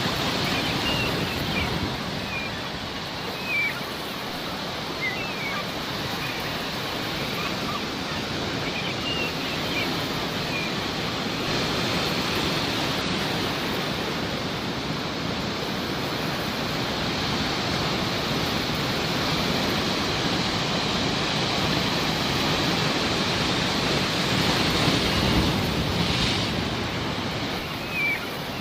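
Sea waves washing on a shore in a steady rush that swells slightly near the end, with faint short calls of seagulls scattered through the first third and again at the very end.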